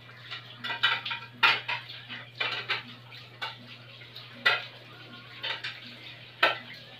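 Spoons or forks clinking and scraping against plates while people eat: irregular sharp clinks, the loudest about one and a half, four and a half and six and a half seconds in, over a steady low hum.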